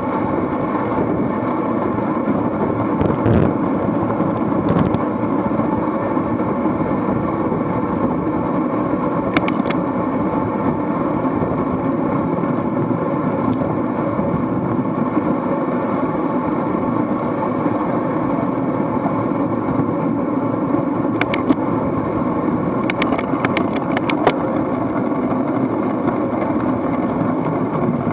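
Steady rush of wind over an action camera's microphone with tyre noise from a road bike ridden at race speed in a pack. A few short sharp clicks come through, several of them bunched together in the second half.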